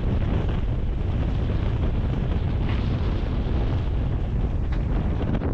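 Steady wind buffeting the microphone on the deck of a sailing catamaran under way: a continuous low rumbling rush.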